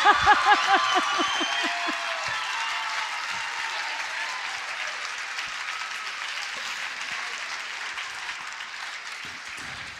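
Audience applauding, the clapping slowly dying away, with a voice laughing in rapid repeated bursts over it in the first two seconds.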